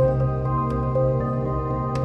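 Calm new-age background music: sustained, soft instrumental tones with gentle notes entering about every half second.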